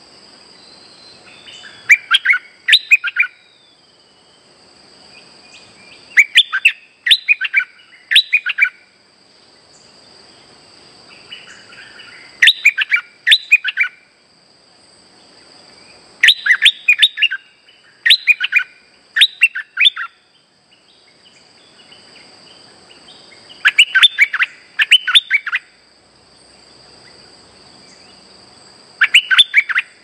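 Stripe-throated bulbul (merbah lekir) singing its lure song: short phrases of quick, bright notes, repeated every few seconds. A steady high insect drone continues beneath.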